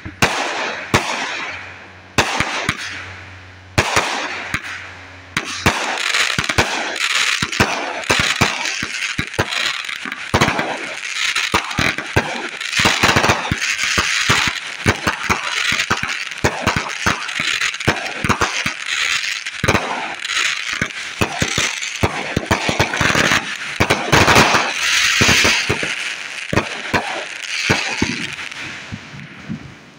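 Aerial fireworks going off. A string of separate sharp bangs comes first, about a second apart, then a dense, continuous crackle of exploding stars for most of the rest, dying away near the end.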